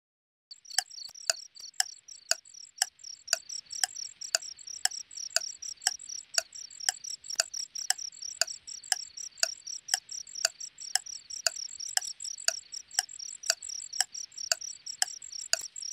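Pendulum wall clock ticking at about two ticks a second over a steady chirping of crickets; both come in about half a second in.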